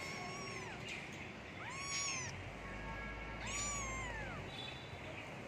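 A kitten meowing: three high-pitched meows, each rising and then falling in pitch, the last one the longest.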